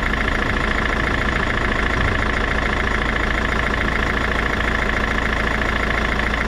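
Peugeot 407's 2.0 HDi four-cylinder turbodiesel engine idling steadily.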